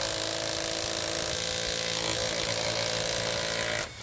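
Kimo 20V cordless mid-torque impact wrench hammering steadily on a car lug nut torqued to about 245 ft-lb, stopping suddenly near the end once the nut has broken loose.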